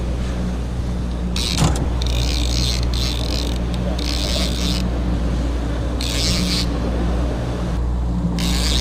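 Boat motor running steadily at trolling speed, with about six short spurts of high whirring as a spinning reel is cranked in.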